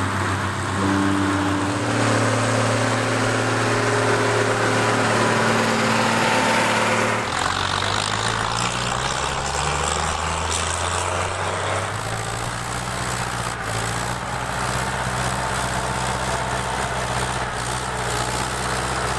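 Diesel tractor engines running steadily under load, heard in turn from several tractors: Schlüter tractors pulling tillage gear, then an International 955 XL dragging a log, then a Deutz pulling a plow. The engine note changes abruptly a few times as one tractor gives way to the next.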